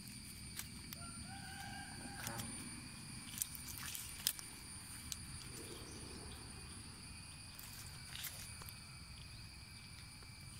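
Outdoor ambience with a low steady rush, a drawn-out animal call about a second in, and a few light clicks and knocks.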